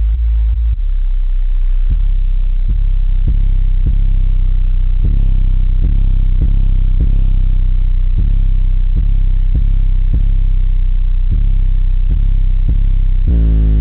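Deep bass from a car's subwoofer system playing a rap track's intro: a sustained low rumble with a sharp beat about twice a second. Near the end the full track comes in with more layered bass and guitar.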